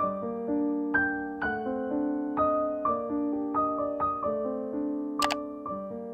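Background piano music, struck notes ringing and fading one after another. About five seconds in, a brief sharp click cuts across it.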